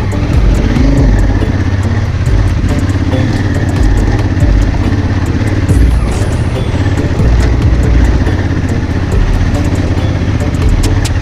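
Honda Africa Twin CRF1000L's parallel-twin engine running steadily while the motorcycle is ridden, with a constant heavy low rumble.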